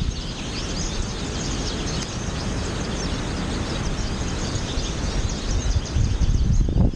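A flock of American goldfinches twittering, a dense run of short high chirps, over steady wind noise on the microphone. The wind rumble gusts louder near the end.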